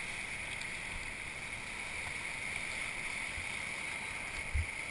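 Steady rushing of whitewater rapids around a kayak, with a brief low thump near the end.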